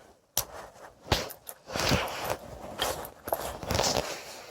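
Handling noise as a hand-held carving adze is turned over: a couple of sharp knocks followed by several short rustles and scrapes.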